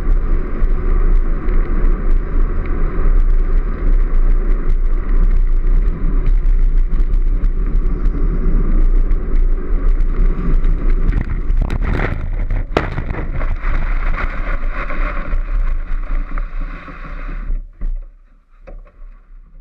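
Unpowered gravity sidecar soapbox rolling fast downhill on tarmac: a steady rumble of its wheels on the road with wind buffeting the microphone and a constant rattle of the bodywork, and a couple of harder knocks about twelve seconds in. Near the end it runs off onto grass and the noise drops away quickly to a soft rustle.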